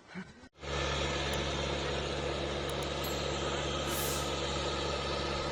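A heavy engine running steadily, with a low, even hum. It cuts in abruptly about half a second in.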